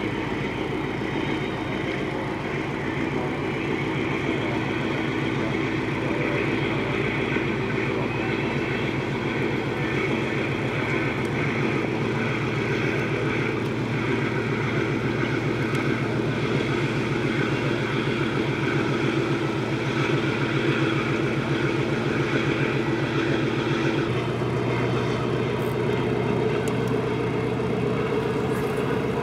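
Passenger ship's diesel engines running steadily with a deep hum; toward the end the engine note shifts slightly.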